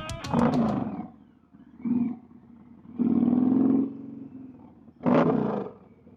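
Indian Challenger's 108 cubic inch V-twin with performance cams revved in four short throttle blips, the longest about two seconds in, each dropping back between.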